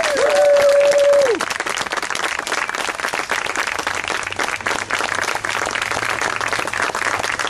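Audience clapping steadily. In the first second someone in the crowd lets out one long, held high cheer that stops about a second in.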